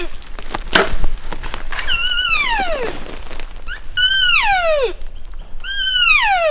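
Elk cow calls: a series of mews about two seconds apart, each starting high and sliding steeply down in pitch. A single sharp knock sounds about a second in.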